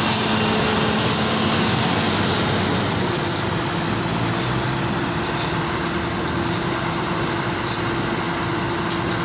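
A heavy engine running steadily under load, with a continuous rumble and a steady drone that settles into a higher tone about three seconds in.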